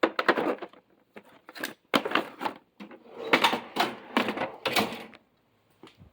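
Steel toolbox drawers sliding shut and open, with a run of metallic clicks and the clatter of tools inside, in several bursts that die away near the end.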